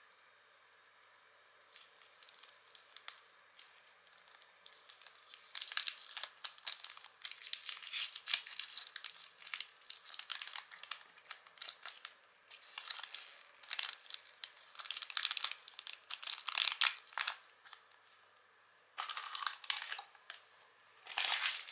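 Foil wrapper of a small chocolate being unwrapped and crumpled by hand, crinkling in irregular bursts from about five seconds in, with a short pause before a last flurry near the end.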